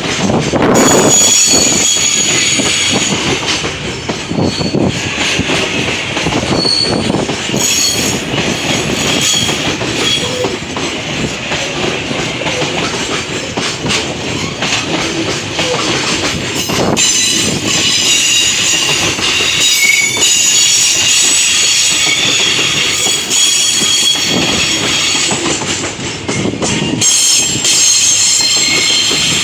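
Freight train hauled by a JR Freight EH500 electric locomotive rolling steadily past. Its wheels squeal in high, wavering tones and clack over the rail joints.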